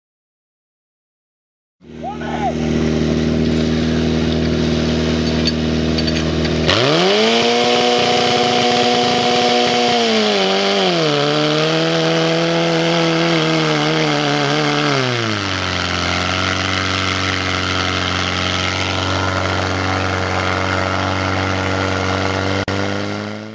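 A portable fire pump's engine running hard, revved up sharply about seven seconds in, then dropping back in two steps to a lower steady speed as it drives water out through the hose lines. The first couple of seconds are silent.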